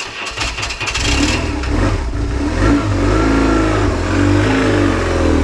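BMW R1150GS sidecar rig's boxer-twin engine running and pulling away on a test ride after reassembly, its pitch rising and falling with the throttle. It starts with about a second of rapid clattering, then settles into a steady low running note.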